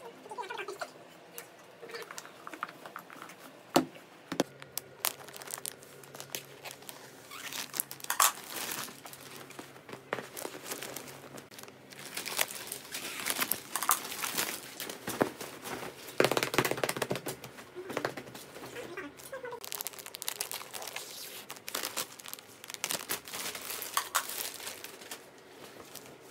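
Plastic packaging and bedding being handled: irregular crinkling and rustling with a few sharp crackles, busiest in the middle.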